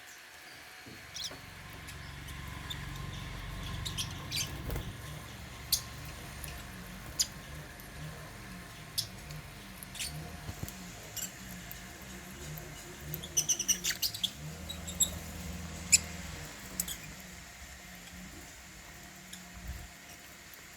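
African lovebirds giving short, high, squeaky chirps scattered through the feeding, with a quick flurry of them about two-thirds of the way through, over a low rumble.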